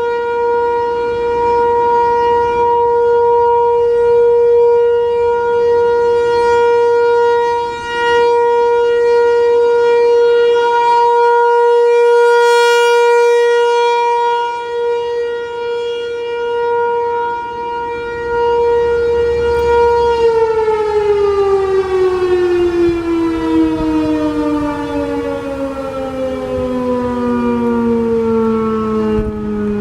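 American Signal Corporation T-128 outdoor warning siren sounding a single steady tone for a monthly test, swelling and fading slightly in loudness. About twenty seconds in it is cut off, and the pitch falls steadily as the siren winds down.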